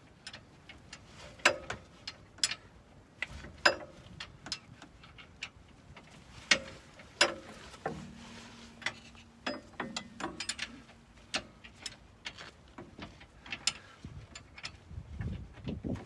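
Hand tools clicking and clinking against the metal of a car's rear suspension while the upper toe link is being unbolted: irregular sharp metallic knocks, several ringing briefly, with a short low hum about halfway through.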